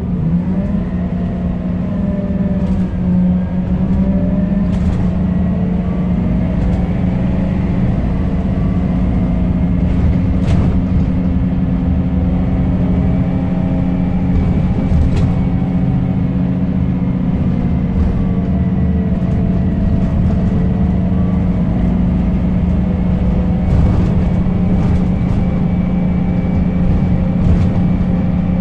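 Scania K270UB bus's five-cylinder diesel engine driving the bus along, heard from inside the passenger saloon: a steady low drone, with the engine note rising and falling as the bus speeds up and slows. A few sharp clicks and rattles are heard along the way.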